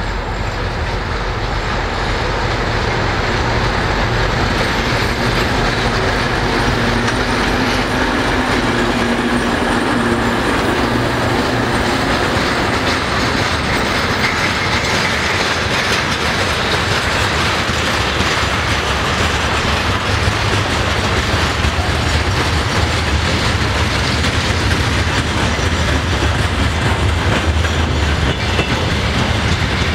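2M62 twin-section diesel locomotive with 2D49 engines running past at low speed, then a freight train's wagons rolling by with a steady clickety-clack of wheels over the rail joints.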